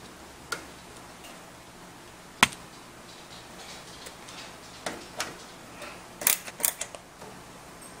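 Screwdriver driving the power supply's mounting screws into the steel back panel of a PC case: scattered sharp metal clicks and taps, the loudest about two and a half seconds in, and a quick run of several clicks about three quarters of the way through.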